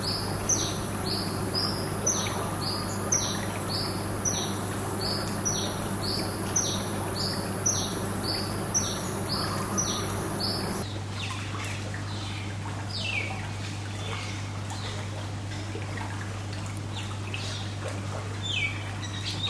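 Songbirds chirping outdoors: one bird repeats a short falling note about twice a second, with a steady high-pitched whine behind it, and both stop abruptly about eleven seconds in. After that come scattered chirps from other birds over faint trickling pool water and a steady low hum.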